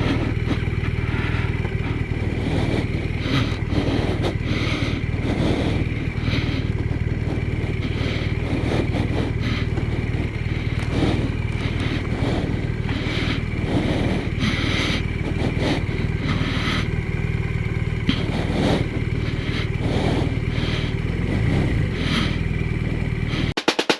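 BMW R1200RT's boxer twin engine running steadily at low revs, with scattered light knocks and scrapes.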